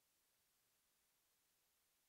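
Near silence: only a faint, steady hiss.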